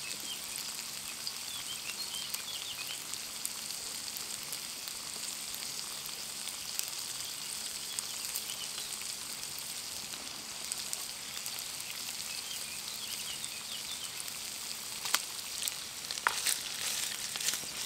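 Bacon bits frying in oil in a small non-stick pan, a steady sizzle with fine crackling. Near the end a few sharper knocks as the pan is stirred.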